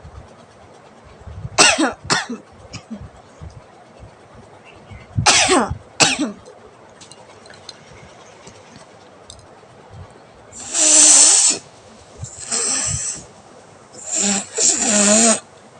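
A woman sneezing in two pairs of short, sharp bursts, then blowing her nose hard in three longer hissing blasts in the second half.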